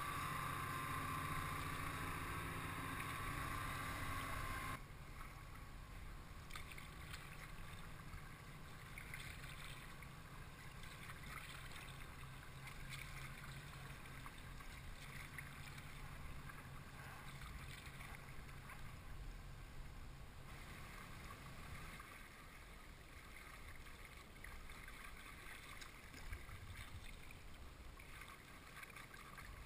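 Steady drone of a tugboat's engine with a high hum, heard close by from a kayak; it cuts off suddenly about five seconds in. After that, quieter water lapping and paddle splashes, with a faint low engine drone that fades away about two-thirds of the way through.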